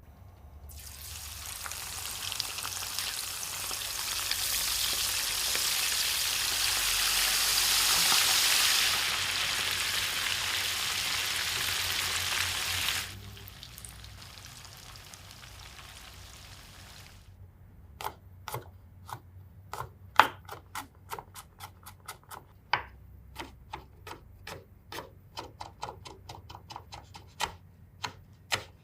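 A loud, steady hiss builds for about twelve seconds and then cuts off. After a quieter pause, a run of sharp knife strikes on a cutting board follows, about two to three a second, as food is chopped.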